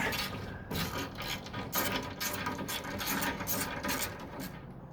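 Hand ratchet clicking, with metal scraping and rattling, as a fastener holding the door's window track is backed out.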